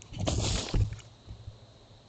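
A deer's sneeze: a sharp, breathy blast of air through the nose lasting about half a second, followed by a few faint low thumps.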